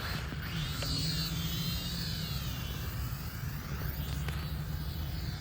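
Small quadcopter's motors whining, the pitch wavering up and down as the throttle changes, over a steady low rumble.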